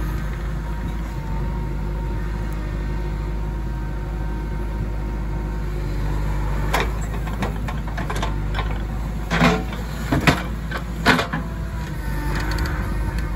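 JCB 3DX backhoe loader's diesel engine running steadily under hydraulic load while the backhoe digs and swings. In the second half come several sharp clanks and knocks from the bucket and arm.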